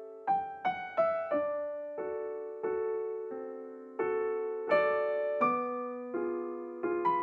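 Background piano music: a slow, gentle melody of single notes and chords, each struck and left to fade.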